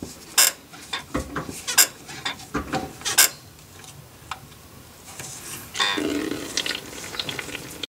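Sharp metallic clinks and taps of a ring spanner on the bleed nipple of a clutch slave cylinder as it is cracked open and nipped up during a pump-and-hold bleed. In the last two seconds a longer, lower rough sound joins in, before the sound cuts off.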